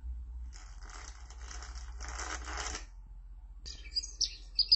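A fluttering rustle lasting about two seconds, then birds chirping in quick high notes from about three and a half seconds in.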